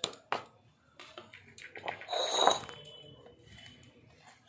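A white ceramic bowl and a stainless-steel mixer-grinder jar knocking as they are handled: two sharp knocks at the start, then a louder clink about two seconds in, with a ringing tone that fades over a second.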